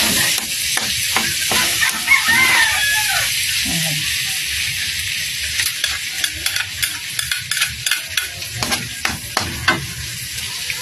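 Garlic and ginger sizzling in melted margarine in a steel wok, with a metal ladle scraping and clicking against the pan. The clicks come thick and fast in the second half.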